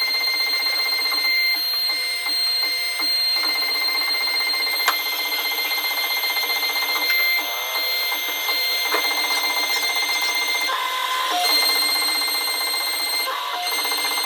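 CNC router spindle running with a steady high-pitched whine while cutting wood, over a constant hiss of cutting noise.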